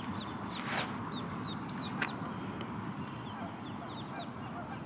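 Ducklings peeping: many short, high, downward-sliding peeps at an irregular pace over a low steady hiss, with a single short click about two seconds in.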